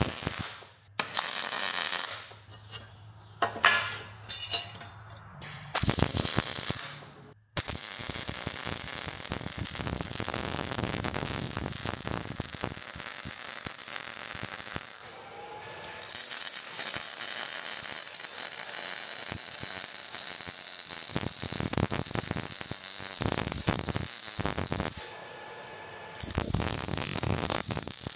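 MIG welding arc crackling as a steel pipe is welded to a plate: a few short tack welds first, then longer continuous beads from about eight seconds in, broken by short pauses near the middle and near the end.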